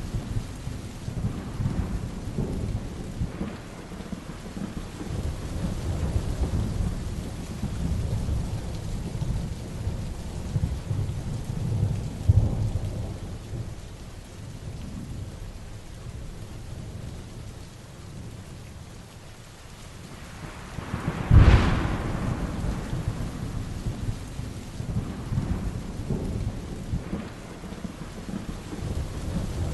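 Heavy rain falling while thunder rumbles on steadily. About two-thirds of the way through, one sharp, loud thunderclap cracks, then rolls on into rumbling.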